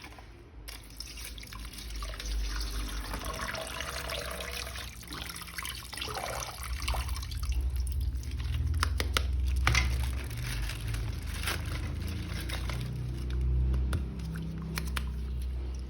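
Water running and splashing while a plastic toy figure is washed, with a few small knocks of plastic.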